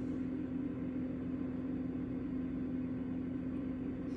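A steady low hum at one constant pitch, unchanging throughout.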